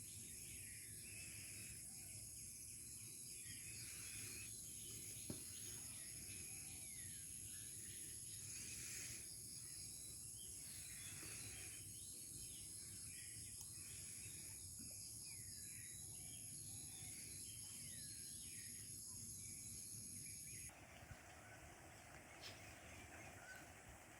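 Faint countryside ambience: insects trilling steadily at a high pitch, with many birds chirping and calling. The insect trill cuts off abruptly near the end, leaving a quieter background.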